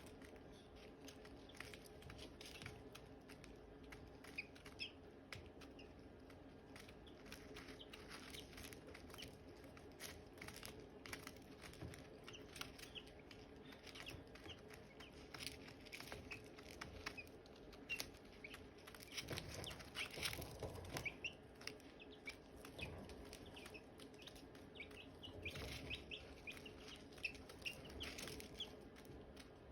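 Silkie chicks peeping faintly, many short high chirps scattered throughout, with small clicks and a steady low hum underneath. A louder rustling comes about twenty seconds in and again a few seconds later.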